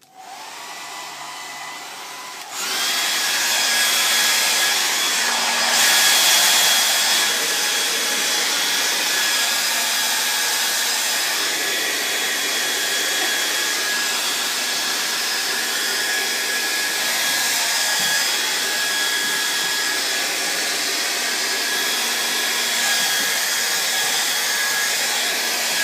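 Handheld blow dryer running with a steady rushing hiss and a thin whine; it steps up sharply in loudness about two and a half seconds in and then holds steady.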